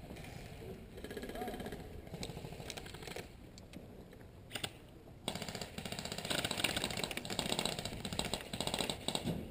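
Airsoft guns firing rapid full-auto bursts, a fast even rattle that is softer early on and grows loud about halfway through.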